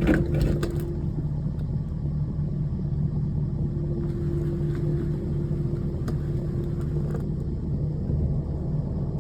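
A steady low engine hum, with a few sharp clanks in the first second.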